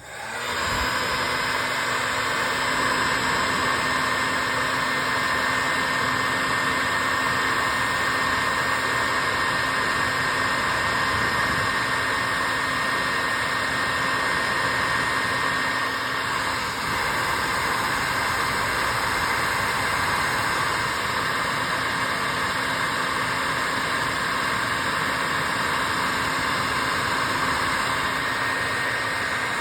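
Electric heat gun blowing hot air steadily: a constant rush of air with a steady motor whine. It is heating a heat-shrink solder butt connector to shrink the tubing and melt the solder ring.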